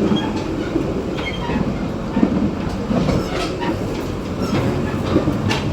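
Taroko Express tilting train running, heard at the gangway between two carriages: a steady running rumble with scattered clicks, knocks and short high creaks from the car connection and the wheels on the track.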